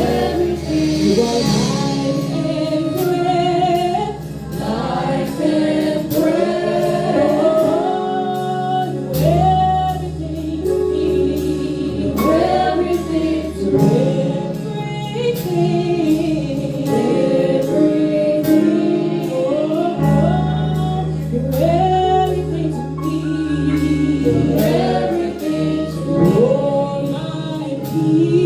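Gospel worship song: a choir singing over a live band, with a steady beat and long held bass notes that change every several seconds.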